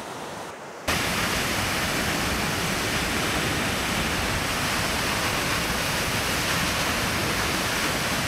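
Okatse waterfall: falling water making a dense, even rush. It is faint for the first second, then cuts in suddenly much louder and holds steady.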